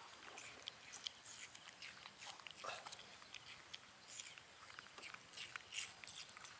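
Faint, scattered small clicks and smacks of baby monkeys chewing and mouthing pieces of apple.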